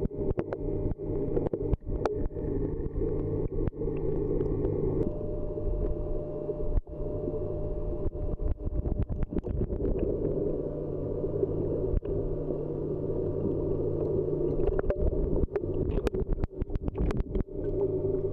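A steady low hum with many short clicks and knocks scattered through it, picked up by a camera in a waterproof housing at and just below the water surface.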